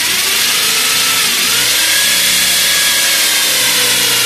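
Corded electric drill running at full speed, its bit boring a bolt hole down into a wooden rifle-stock blank. The motor whine is loud and steady, with its pitch rising a little and then easing as the bit takes load.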